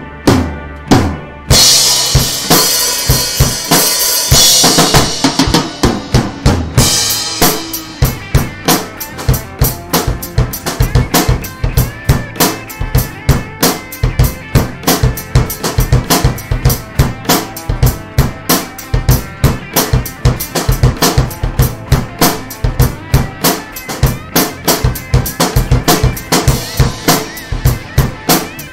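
Acoustic drum kit played in a steady rock beat, with bass drum and snare hits. Cymbal crashes ring out over the first several seconds, then the beat settles into regular, even strokes.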